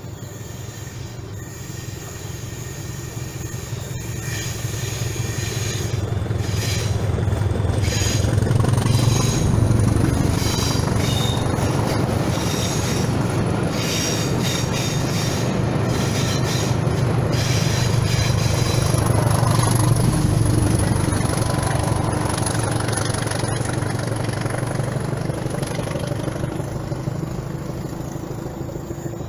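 Preserved 'Hastings Thumper' diesel-electric multiple unit 1001 passing under power, with the deep thumping beat of its English Electric four-cylinder diesel engines working hard. The sound swells to a loud peak about a third of the way in, with wheels clicking over the rail joints, swells again about two thirds in, then fades away as the train recedes.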